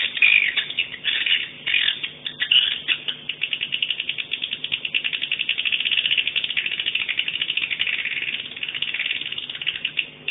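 Swiftlet calls: a few short chirping twitters, then a long, fast rattling trill of clicks that fades near the end.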